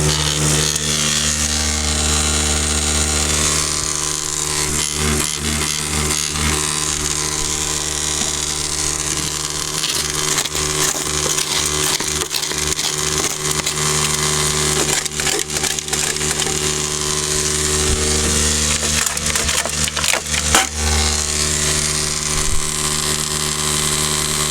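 Electric non-air drywasher running: a steady motor hum with dry dirt hissing and rattling as it moves down the hopper. Through the middle the hum drops back and irregular knocks and scrapes come and go, then the steady hum returns.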